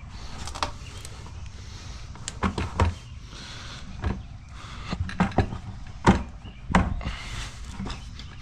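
Tire spoons levering a tubeless motorcycle tire's bead over the rim of a cast mag wheel: about ten irregular sharp clicks and knocks of metal tools against the wheel and rubber.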